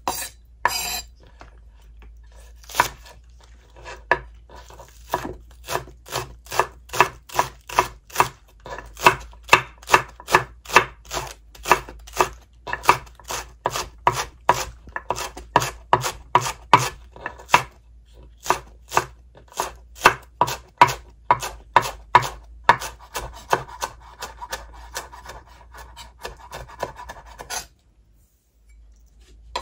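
Kitchen knife slicing green onions on a wooden cutting board, the blade knocking the board about twice a second in a steady rhythm. The chopping stops suddenly near the end.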